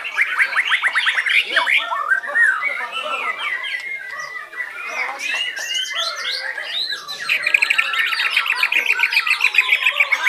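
White-rumped shamas singing in overlapping, varied phrases of whistles, chirps and rapid trills, with a fast run of repeated notes near the end.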